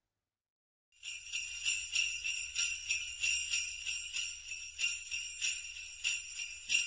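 Jingle bells shaken in a steady rhythm, about three shakes a second, starting after a second of silence.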